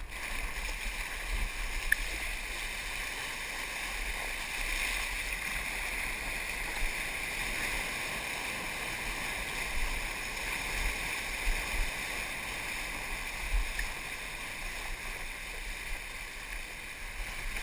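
Water rushing steadily past a surfboard as it glides along a wave, heard from a camera mounted on the board, with a low rumble underneath.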